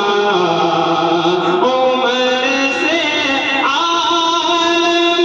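A man singing a naat, an Islamic devotional poem in praise of the Prophet, into a microphone. He holds long, drawn-out notes that step upward in pitch about two seconds in and again about four seconds in.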